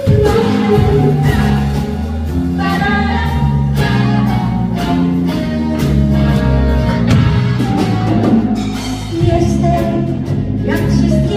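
Live pop band playing a song: drums, bass, guitars and keyboard, with a woman singing.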